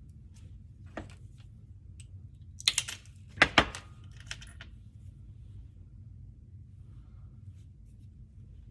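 Craft cutting tools and material being handled and cut, heard as a few short, sharp clicks and scrapes. The clicks come in two tight clusters near the middle, loudest about three and a half seconds in, over a faint steady low hum.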